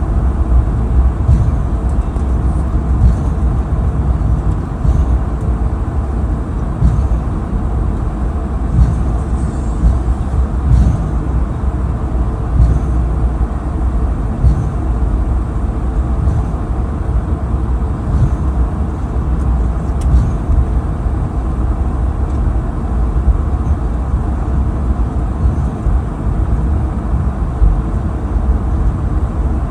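Steady low rumble inside a moving vehicle, with faint ticks every second or two.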